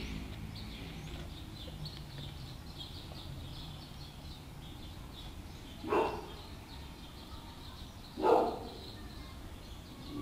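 A dog barks twice, about two seconds apart, over faint high bird chirping and low street background noise.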